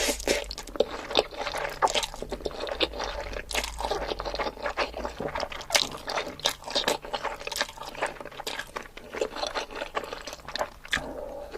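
Close-miked eating: a person chewing and biting food, with wet smacking and crunchy clicks coming several times a second, irregularly.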